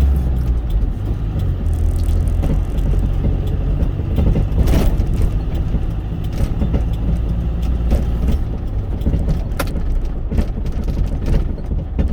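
Cargo truck driving, heard inside the cab: a steady low engine and road drone, with sharp clicks and knocks now and then, a few louder ones about a third and two thirds of the way through.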